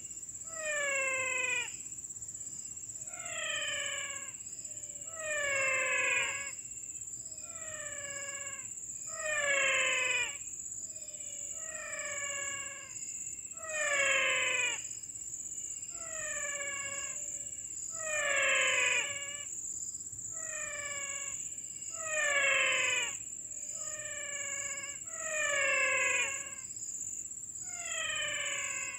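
A wild animal call, a falling note with rich overtones, repeated about every two seconds, over a steady high-pitched whine.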